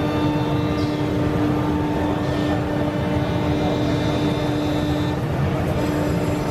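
Woodworking machinery running steadily amid exhibition-hall din: a constant machine hum with a few steady tones, which drops out briefly a little after five seconds in and then resumes.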